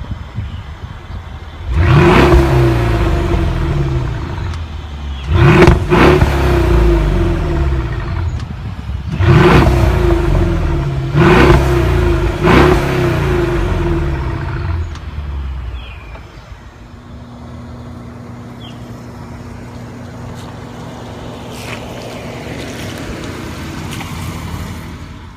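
2016 Mercedes-Benz S550 coupe's twin-turbo V8 exhaust, revved sharply five times from idle. Each rev falls back slowly. About 16 seconds in it settles into a steady idle.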